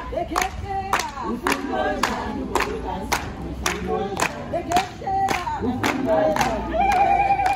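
A group of women singing a traditional Xhosa song and clapping in time, about two claps a second. Near the end one voice holds a long wavering note.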